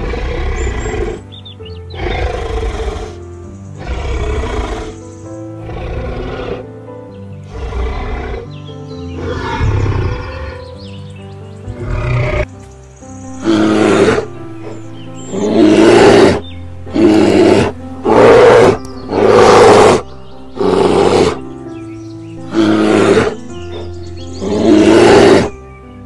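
Background music with a run of about fifteen loud animal roars, each about a second long, coming every second or two and louder in the second half.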